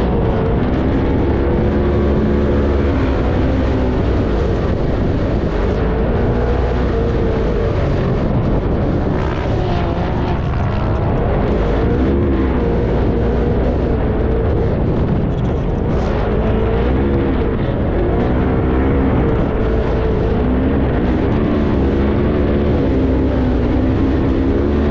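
Off-road race vehicle's engine heard on board at racing speed, its revs rising and falling again and again, over a steady low rumble.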